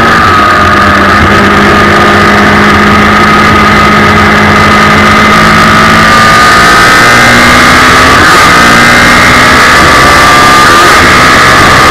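Suzuki Hayabusa motorcycle inline-four engine in a race car, heard onboard, running hard under load through an Akrapovic exhaust. The pitch holds mostly steady, with small steps about six, eight and eleven seconds in.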